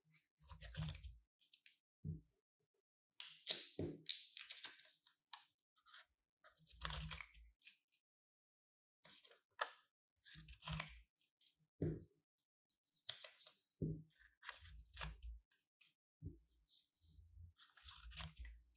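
Steel scissors cutting through small squares of green paper, one cut after another at uneven gaps of about a second or two, each cut short with quiet between.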